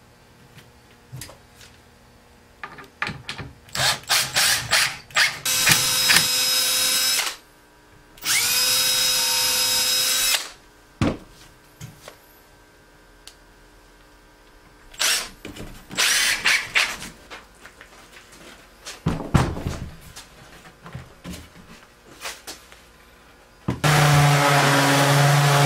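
Cordless drill running twice, about two seconds each, driving screws into the cedar crib frame, with knocks and clatter of wood and tools between. Near the end a random orbital sander starts up and runs steadily, louder than the drill.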